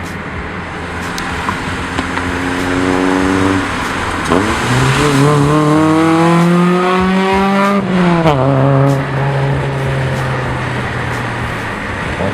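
Car engine pulling through the gears: its pitch climbs, dips sharply a little after four seconds, climbs again, then drops about eight seconds in and holds steady at a lower note, as at an upshift to cruising.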